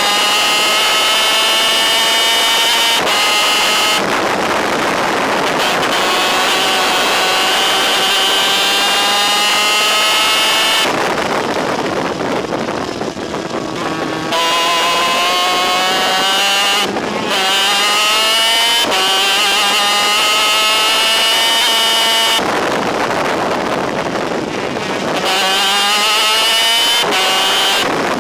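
250cc DEA two-stroke superkart engine at full throttle, its note climbing in pitch through the gears and dropping at each upshift. Twice, about eleven and about twenty-two seconds in, the note falls away to a rough, ragged sound as the driver lifts off for a corner, then climbs again.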